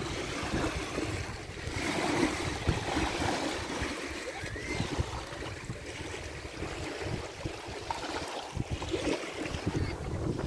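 Strong wind buffeting the microphone in gusts over small waves lapping at the edge of a reservoir.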